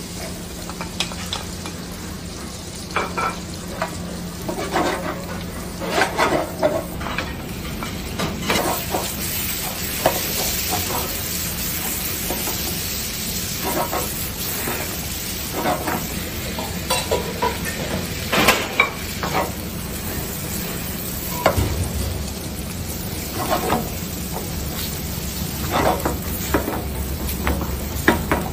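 Squid rings frying in hot fat in a frying pan, sizzling steadily, while a wooden spoon stirs them, knocking and scraping against the pan at irregular moments.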